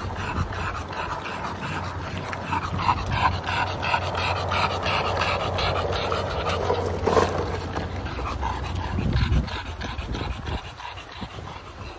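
English bulldog panting quickly and evenly, with its rolling skateboard's wheels rumbling on asphalt underneath. The panting fades in the last couple of seconds.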